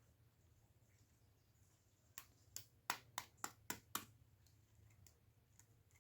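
About seven quick, sharp taps against a bowl, roughly three or four a second, starting about two seconds in, over a faint low hum.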